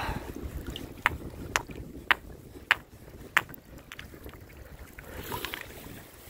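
About five sharp clicks of stones knocking together as a hand works among pebbles in shallow lake water, over a low steady rumble.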